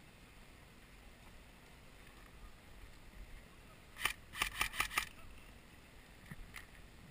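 Airsoft rifle firing a quick burst of about six shots within a second, about four seconds in, followed by a couple of fainter shots near the end.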